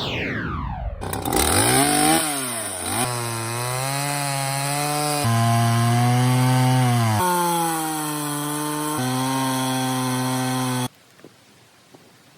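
Chainsaw power head of an Alaskan mill running under load through a log, heard as a steady engine note whose pitch jumps at several abrupt cuts. It is led in by a falling sweep and stops suddenly about a second before the end, leaving faint ticks.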